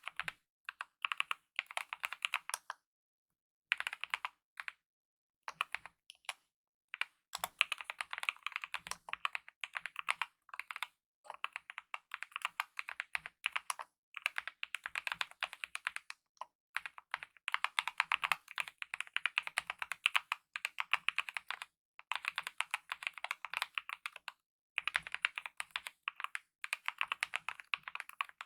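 Typing on a mechanical keyboard with lubed optical red linear switches and DSA-profile keycaps: fast runs of soft keystroke clacks, broken now and then by brief pauses.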